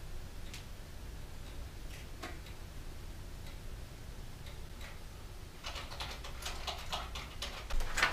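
Light clicks and taps, a few at first and then quicker and louder in the last two seconds, over a low steady hum.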